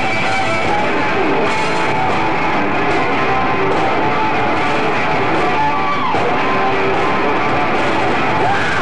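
Loud live hard rock band playing, with distorted electric guitars prominent. A note slides down in pitch about six seconds in and again near the end.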